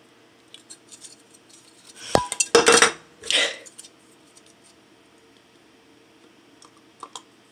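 Hard clear-plastic iMac G3 speaker housing pieces clicking and clattering as they are handled and fitted together, with a cluster of sharp clacks about two to three and a half seconds in, one ringing briefly, and a few faint clicks near the end.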